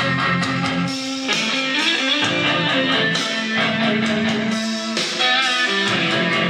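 Guitar-led music played back through a pair of vintage Philips 425 three-way bass-reflex loudspeakers.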